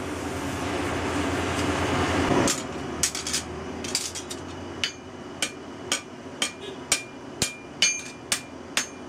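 Steady rushing noise from the forge, growing louder for about two and a half seconds, then stopping. Hand-hammer blows on red-hot leaf-spring steel against the anvil follow, about two a second, each with a short bright ring.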